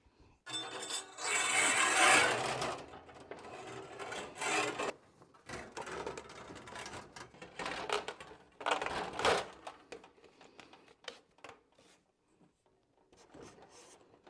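Scraping and rubbing in several separate spells, the longest and loudest about one to three seconds in, with scattered clicks between.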